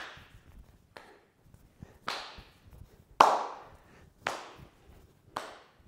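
Sharp hand claps, about one a second and about five in all, each dying away quickly, as the arms swing together in rhythm; one a little past the middle is the loudest.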